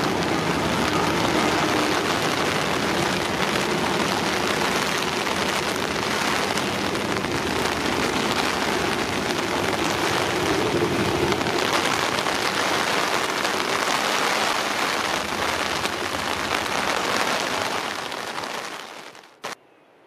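Steady rushing noise of a train running at speed on the track, with a faint steady hum in the first half. The noise fades out near the end, followed by one short click.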